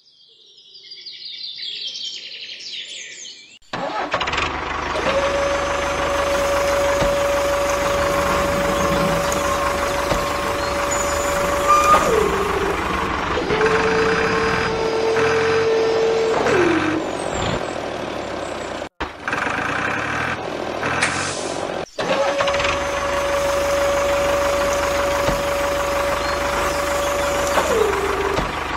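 Small electric motor of a scale-model tractor rig running with a steady whine three times, each run ending with the pitch dropping as the motor stops, over a steady engine-like rumble.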